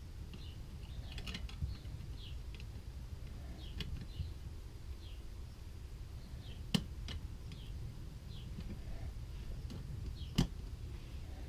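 Hand tools and parts being handled while a carburetor is taken apart: two sharp clicks, one past the middle and one near the end, over a steady low hum, with faint short chirps throughout.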